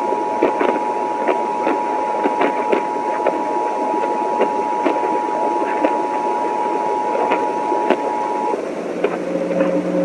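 Emergency Alert System two-tone attention signal, a steady dual tone, heard through crackling radio static with frequent clicks. It stops about eight and a half seconds in, and lower steady tones follow.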